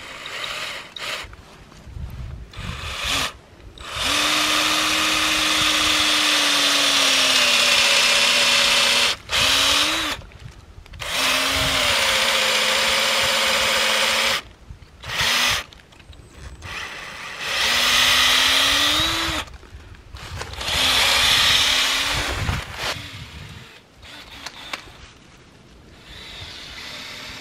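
A handheld power drill boring a tap hole into a maple trunk. It runs in several bursts of a few seconds each, with the motor's pitch sagging as the bit bites into the wood and rising again as each burst ends.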